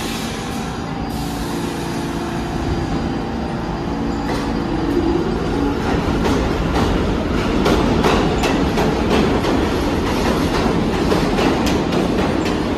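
R46 subway train pulling out of the station: a steady motor hum at first, then a rumble that grows louder as it gathers speed, with wheels clicking over rail joints more and more often from about halfway through.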